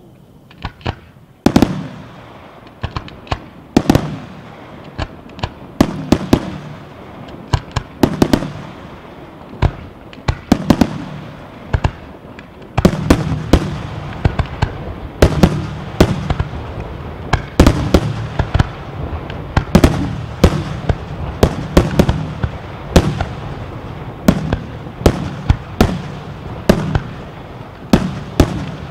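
Aerial firework shells bursting one after another: sharp bangs, each trailed by an echoing rumble. They are spaced a second or two apart at first, then from about thirteen seconds in they come as a dense, rapid barrage with a continuous rumble between the reports.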